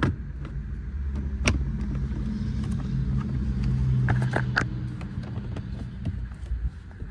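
A car engine running with a low rumble, its hum swelling and fading over a few seconds, while plastic interior trim pieces click and knock as they are pressed into place.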